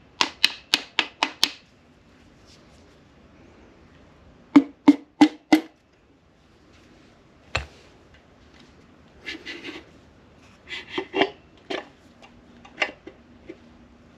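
Piston with its rings in a ring compressor being tapped down into a K24 engine block's cylinder bore with a mallet: a quick run of about seven sharp taps, four more a few seconds later and a single tap. Lighter, scattered knocks follow near the end.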